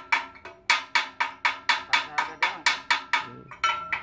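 Rapid metal-on-metal hammer strikes on a rice thresher's toothed drum, about five a second, each with a short ringing note, pausing briefly near the end.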